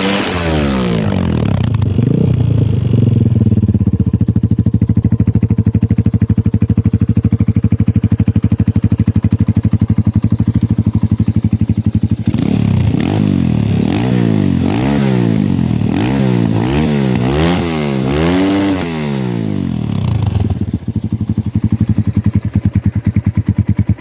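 Kayo K2 dirt bike engine being revved and easing down to a steady idle, which runs for about ten seconds. Midway it is blipped in a series of quick revs, roughly one a second, with the biggest near the end of that run, then it settles back to idle.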